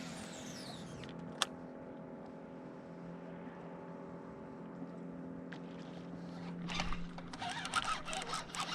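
Steady, even hum of a small boat motor, with a single sharp click about a second and a half in. A burst of rattling, crackling noise starts near the end.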